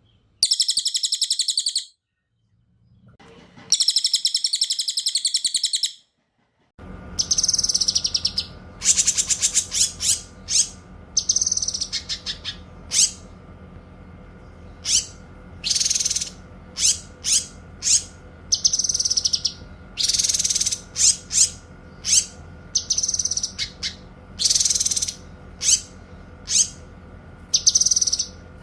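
Caged songbirds singing loudly, the cililin and cucak kinoy of an Indonesian tutor recording. Two long, fast, high trills come first. Then, over a steady low hum, a rapid string of sharp, high chirps and short phrases follows.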